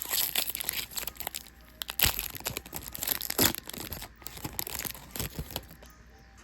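Yu-Gi-Oh booster pack's foil wrapper crinkling and tearing as it is ripped open and handled, in a rapid series of crackles that dies away near the end.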